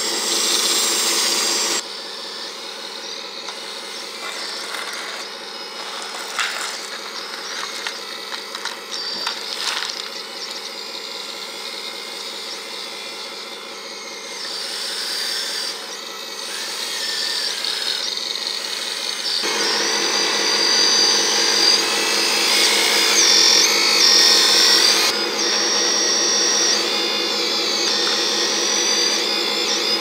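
Radio-controlled wheel loader's electric motors and gearing whining as it drives and works its boom and bucket. The pitch shifts up and down, and the whine gets louder and higher about two-thirds of the way through as the bucket is raised.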